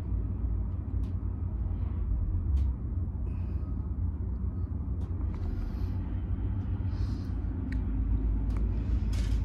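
Steady low rumble with a few faint clicks.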